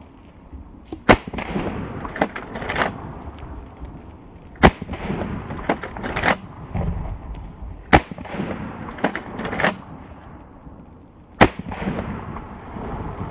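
Four shots from a Remington 887 12-gauge pump shotgun firing dragon's breath rounds, about three and a half seconds apart. Each shot is followed by a pair of clicks as the pump action is racked back and forward.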